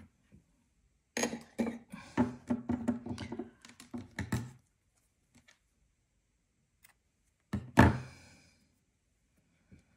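A quick run of dull knocks and thumps, then one louder thump about eight seconds in: hands handling the crochet work and yarn against the tabletop.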